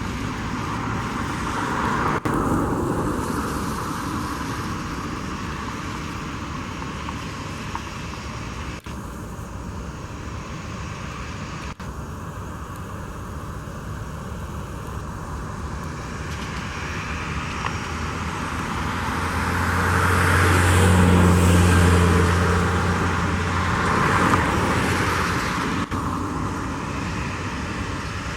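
Boeing 737-700's CFM56 jet engines running, heard as steady noise with a low drone that swells loudest about two-thirds of the way in, then eases off.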